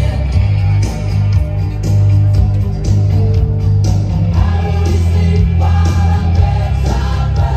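Music with a singing voice over a strong bass and a steady drum beat. The voice comes in more clearly about halfway through.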